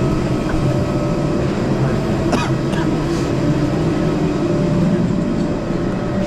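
Steady, loud engine drone of aircraft and ground vehicles at an airport stand, a low rumble with a faint steady whine, and a few brief rattling clicks about two and a half seconds in.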